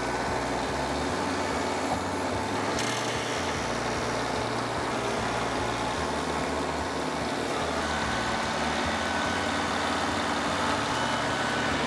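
Chainsaw engine running steadily, at an even pace without revving.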